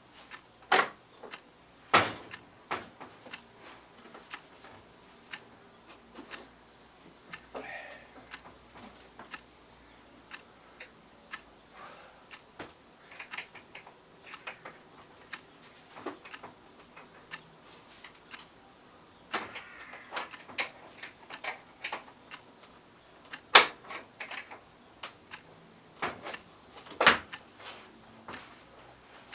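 Irregular clicks and knocks of hands working on a PVC window's sash and hinge hardware, with a few brief rattles. The loudest knocks come about two seconds in and twice near the end.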